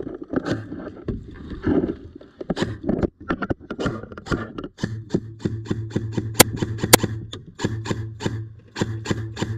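Irregular sharp clicks and knocks of airsoft gunplay. About halfway in, background music with a steady beat and a low bass note comes in, with two sharp cracks over it.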